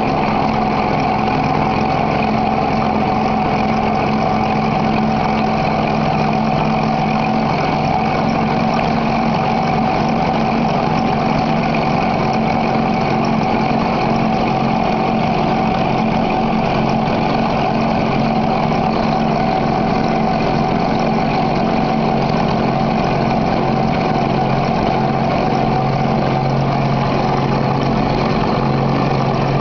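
Glass grinding machine running steadily: motor hum and the whir of the spinning grinding lap, with a few steady tones over an even noise. The low hum shifts slightly in pitch a few seconds in and again near the end.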